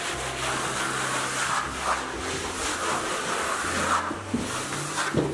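Plastic spatula rubbing over damp clay plaster on a wall in repeated strokes, smoothing the surface to a glaze, over a low steady hum.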